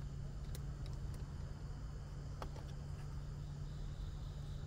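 A steady low hum with a few faint, sharp clicks as hose clamps are handled during the radiator hose refit.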